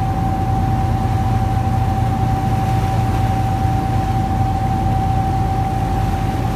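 Catamaran tender's engines running steadily under way at speed: a loud, even low drone with a constant high whine over it.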